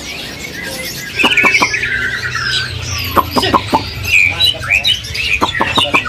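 Many caged songbirds calling at once: overlapping chirps and whistles, with several runs of sharp clicking calls starting about a second in.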